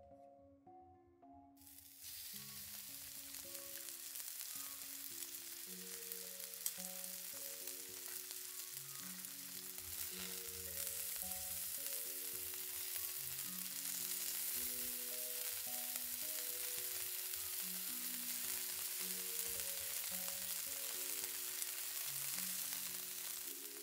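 Slices of beef round searing in hot oil in a frying pan, a steady sizzle that starts about two seconds in, as the surfaces are browned. A single sharp click about seven seconds in.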